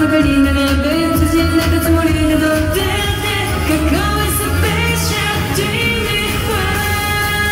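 A pop song with a lead vocal: long held sung notes over a band backing with a steady bass and drum beat.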